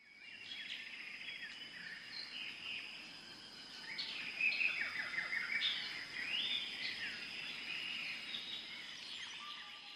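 Birds chirping and calling, many short overlapping calls, over a steady thin high whine and faint background noise.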